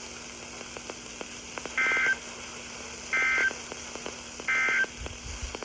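NOAA Weather Radio SAME end-of-message data signal: three short, identical two-tone buzzing bursts, evenly spaced about a second apart, marking the end of a warning broadcast. A steady low hum and faint clicks lie underneath.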